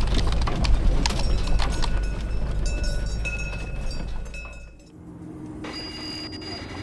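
Cattle walking past on a paved road, hooves clopping, over the low rumble of the van's idling engine. About five seconds in, the sound changes abruptly to the quieter, steady hum of the van's cabin while it drives along the road.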